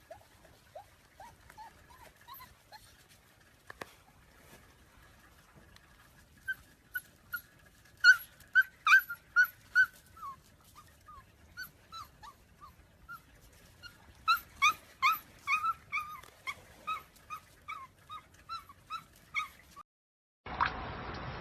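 A dog whimpering in a long run of short, high whines. They come thicker and louder from about eight seconds in and again from about fourteen seconds.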